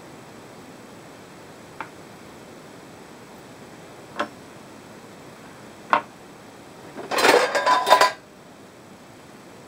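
A chef's knife on a wooden cutting board: three single knocks a couple of seconds apart, then about a second of loud metallic clatter as the knife is set down on the board.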